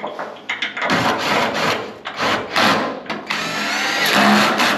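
Cordless drill-driver running in several short bursts, driving screws. In the last and longest burst the motor's whine rises.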